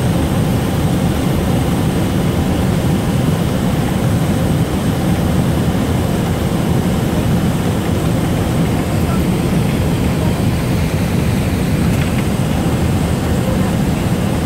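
Saab 2000's Rolls-Royce AE 2100 turboprop engine running on the ground with its propeller turning, heard through the cabin wall as a steady, loud, deep drone.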